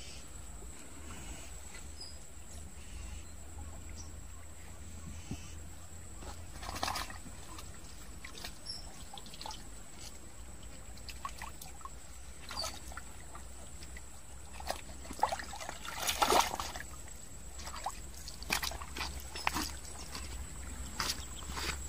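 Shallow water trickling and sloshing, with scattered small splashes and a louder run of splashing about two thirds of the way through.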